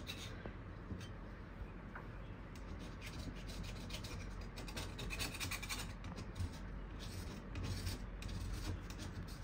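Small hand scraper scratching and rubbing old wallpaper backing off a wall in short, irregular strokes.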